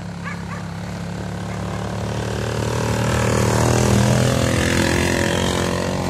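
Engine of a homemade four-wheeled off-road vehicle on big tyres driving past, a steady hum that grows louder as it approaches, peaks about four seconds in, then eases off slightly as it moves away.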